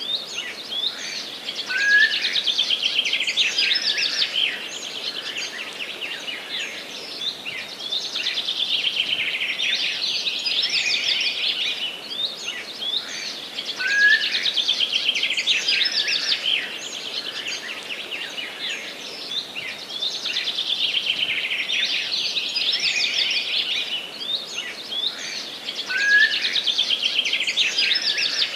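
Forest birdsong: several small birds singing at once, a dense run of high chirps and rapid trills that swells and eases every few seconds. A short, lower, louder whistled note stands out three times, about twelve seconds apart.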